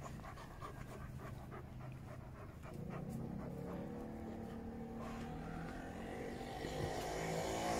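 German shepherd puppy panting as it bites and tugs on a cloth, with scattered short clicks and scuffs. A steady sound with several held tones grows louder near the end.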